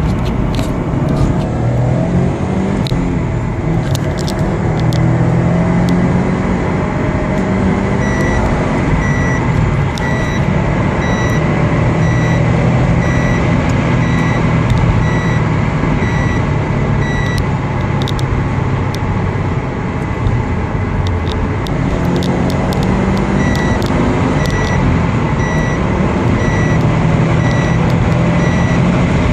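Subaru STI's turbocharged flat-four engine running with little change in revs. From about eight seconds in, a high electronic beep repeats in short runs over it.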